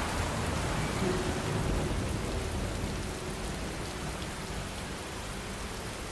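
Steady rain falling on a surface, an even hiss of drops, with a low rumble swelling in the first couple of seconds. A few soft, held piano notes sound faintly beneath it.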